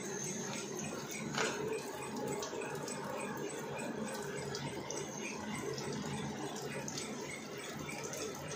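Bar and rebar threading machine running: a steady hum with an occasional click.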